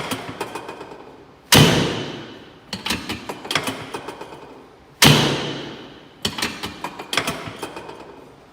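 Heavy thuds on a chiropractic treatment table, three of them about every three and a half seconds, each trailing off slowly. Between the thuds come quick clusters of sharp clicks as the adjustment is worked.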